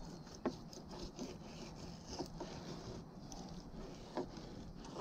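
A fillet knife slicing a mangrove snapper along its rib cage. Faint rasping, scraping cuts, with a few sharp clicks, the clearest about half a second in and near the end.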